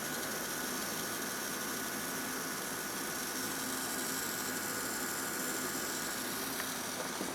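Steady, even hiss with a faint hum underneath, unchanging throughout.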